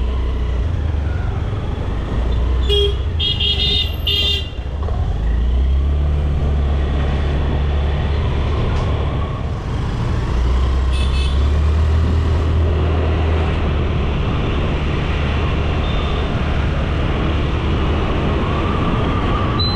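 Ride on a Honda Activa 125 scooter in traffic: a steady low rumble, with a few short horn toots about three seconds in and one more around eleven seconds.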